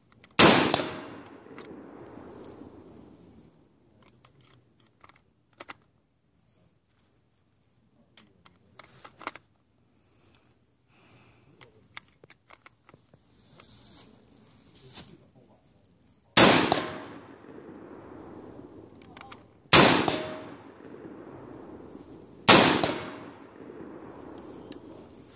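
AR-15 rifle firing single .223 shots: one about half a second in, then after a long pause three more about three seconds apart, each followed by a trailing echo.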